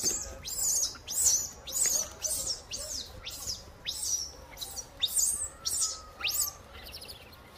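A run of about a dozen short, high-pitched chirping calls, roughly two a second, each sweeping down in pitch, that stop a little before the end.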